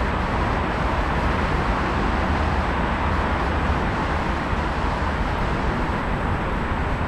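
Steady urban background noise, a low rumble under a hiss.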